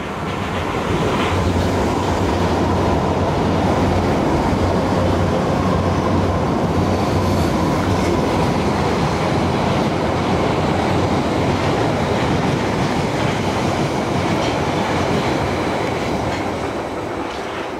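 London Underground Piccadilly line 1973 Tube Stock train running non-stop through a station at speed. Its steady rush of wheel and track noise, with a faint high whine, swells about a second in, holds level as the cars pass, and eases off near the end.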